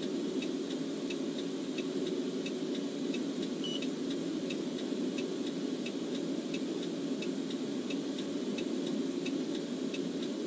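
Steady hum on a police car's dashcam audio, with a light tick repeating evenly about twice a second.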